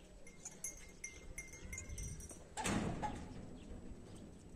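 Livestock bleating once, about two and a half seconds in.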